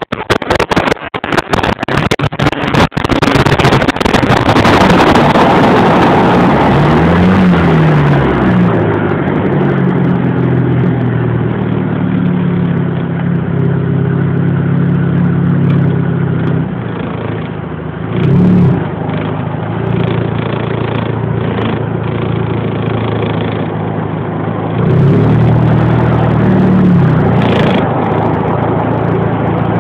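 Audi A4 driving, its engine revving up and dropping back as it pulls away and changes gear, with heavy wind buffeting on the phone's microphone over the first few seconds.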